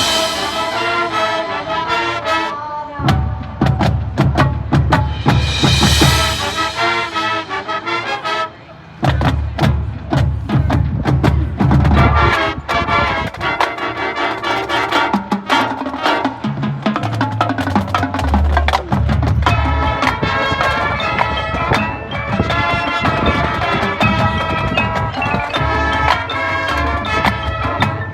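High school marching band playing its field show: sustained brass chords over drums and deep bass drums, with a short break in the sound just before the nine-second mark.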